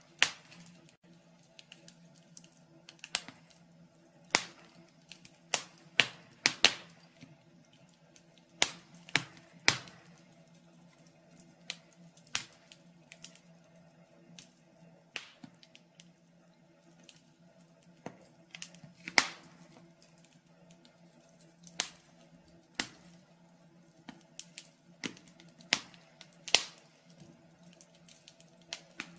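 Wood fire crackling in a fireplace: irregular sharp pops and snaps, a few every second or two, with louder cracks about 19 and 26 seconds in, over a faint steady low hum.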